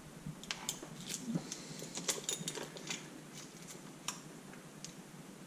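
Faint, irregular metallic clicks and clinks of a wrench tightening the camshaft sprocket bolts on a Honda CB125E cylinder head, bunched in the first half with one more a little later.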